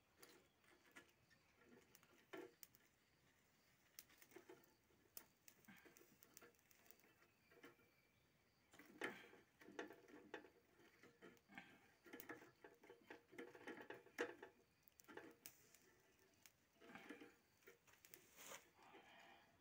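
Near silence with faint scattered clicks and taps, a few of them bunched more closely about halfway through and near the end.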